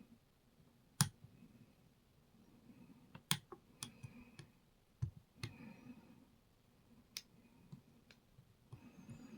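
Lock pick and tensioner clicking inside a Rav Bariach KeylocX lock as it is picked: about a dozen sharp, irregular metal clicks. The picker is working the last pin with counter-rotation.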